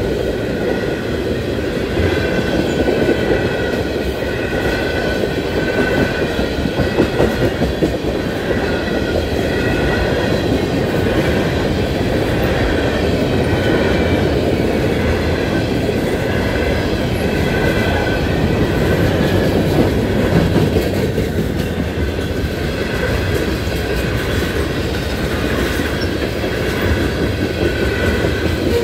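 Freight cars, tank cars and covered hoppers, rolling steadily through a grade crossing: a continuous rumble with wheels clicking over the rail joints. Above it, the crossing's mechanical bell rings without a break.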